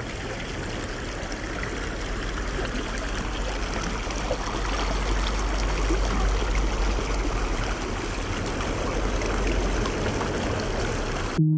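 Shallow rocky mountain stream running: a steady rush of flowing water, with a low rumble underneath.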